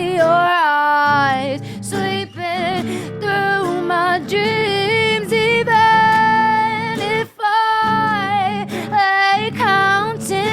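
A song performed live: a woman singing long held notes with vibrato over instrumental accompaniment, with short breaths between phrases.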